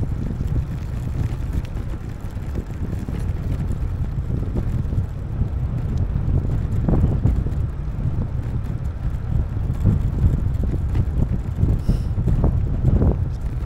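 Wind rushing over the microphone of a camera carried on a moving bicycle: a loud, steady low rumble. Stronger gusts come about seven seconds in and again near the end.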